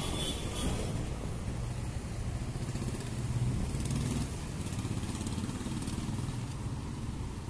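Street traffic: the engines of passing cars and motorbikes making a steady low hum, with one vehicle a little louder about three seconds in.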